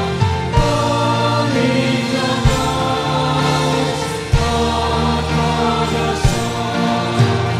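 Tagalog gospel song sung by a woman lead singer with choir voices, backed by a live band of keyboard, guitars and drums, with a low drum thump about every two seconds.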